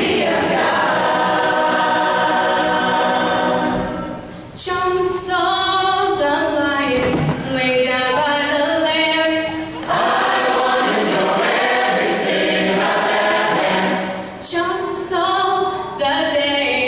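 Large mixed choir of young voices singing in sustained chords, the phrases broken by short breaths about four and a half seconds in, near the middle and again near the end.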